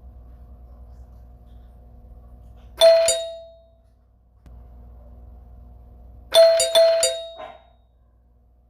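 Doorbell ringing: one bright ring about three seconds in, fading over about a second, then a quick run of four or five rings a few seconds later. A faint steady hum runs under it between the rings.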